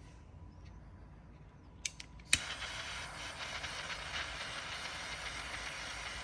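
A small torch lit with a few sharp clicks about two seconds in, then its flame hissing steadily while it heats adhesive-lined heat shrink down over a cable lug.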